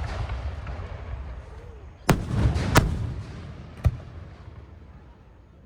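Aerial fireworks shells bursting: three sharp bangs about two seconds in, a moment later and near four seconds in, each followed by a low rolling rumble that fades away.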